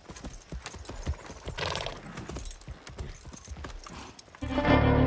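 Horses' hooves clip-clopping at a walk in an irregular patter of soft knocks. Near the end, a loud held musical chord cuts in abruptly.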